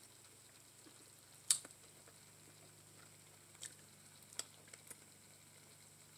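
Quiet eating sounds from a person chewing tender curried neck bones by hand: a few wet mouth smacks and finger-licking clicks, the sharpest about a second and a half in.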